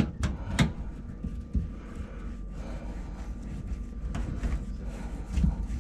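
A quick run of clicks and clunks in the first second, then a couple of single knocks, over a steady low hum: handling noise from drain-cleaning work under a kitchen sink.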